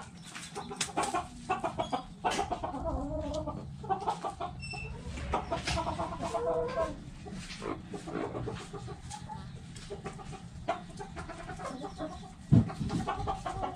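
Several hens clucking in a string of short calls, with sharp clicks among them. A single loud knock comes near the end.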